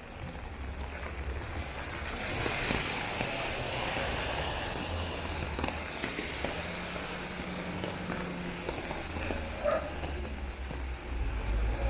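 City street ambience: steady noise of passing car traffic, with scattered small clicks and knocks.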